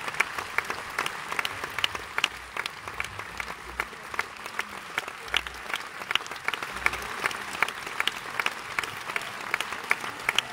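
Audience applause at a curtain call: a steady wash of clapping, with sharp individual claps from people close by standing out.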